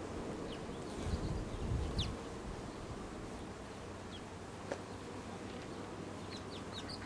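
A colony of honey bees humming steadily on an open brood frame held out of the hive. A few short high chirps sound through it, several near the end, and brief low rumbles come about one and two seconds in.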